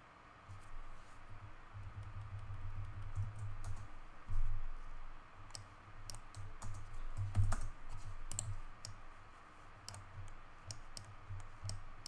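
Scattered clicks of a computer keyboard and mouse being worked, with irregular low desk bumps beneath them.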